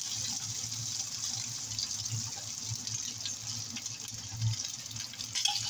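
Chicken pieces sizzling steadily in hot olive oil in a steel wok as they begin to fry.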